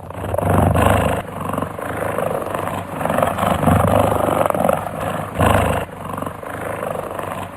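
Cheetah growling: a harsh, rough sound that swells and eases in repeated surges, loudest about a second in, near four seconds and around five and a half seconds.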